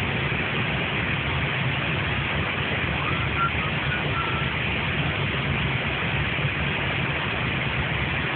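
Steady in-flight noise on an Airbus flight deck: a low drone with a constant rushing hiss of airflow. A few faint short high tones sound about three to four seconds in.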